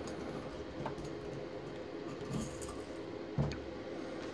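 Small metal parts of a homemade bearing press (a long screw, washers and a nut) clinking lightly as they are pulled from a motor's stator and set down on a bench, about three light knocks over a low steady hum.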